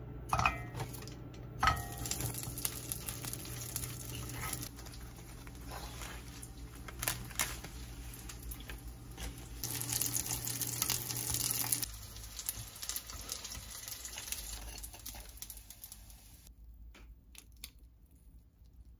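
Breaded chicken nuggets sizzling in hot oil in a cast-iron skillet, with a plastic bag crinkling near the start and the clicks of chopsticks turning the pieces. The sizzle stops about twelve seconds in, leaving only faint clicks.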